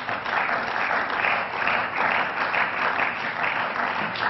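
Applause from many people in an assembly chamber, a dense, steady patter of clapping greeting the end of a speech.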